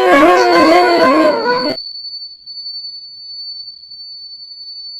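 A cartoon kuntilanak ghost's long, high, wavering laugh, which cuts off suddenly about two seconds in. A faint, thin, steady high tone starts just after the laugh begins and carries on after it stops.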